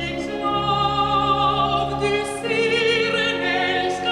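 Classical music with operatic singing: long held notes with vibrato, changing pitch a little past halfway, over a steady low accompaniment.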